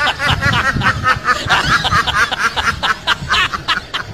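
A duck quacking in a rapid, unbroken run of short calls, several a second.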